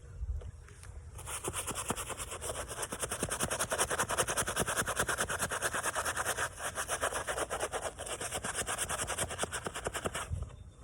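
A brush scrubbing a Nike Fly By Mid 3 sneaker in rapid, even back-and-forth strokes, starting about a second in and stopping just before the end.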